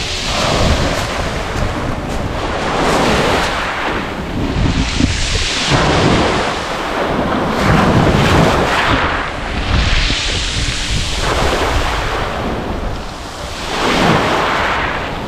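Small sea waves breaking on a shingle beach, each wave surging in with a rushing hiss and then falling back. A new surge comes every two to three seconds.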